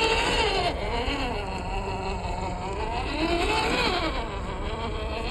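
Electric motor and gearbox of a WPL Toyota FJ40 scale RC crawler whining as the truck works through loose sand and gravel, the pitch rising and falling with the throttle, with one clear rise and fall near the end.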